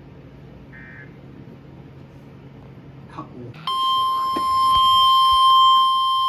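One short buzzy EAS data burst about a second in, the last of the end-of-message code for the previous warning, over faint static hum. About three and a half seconds in, a loud, steady single-pitched weather-radio warning alarm tone starts suddenly and holds, announcing the next alert.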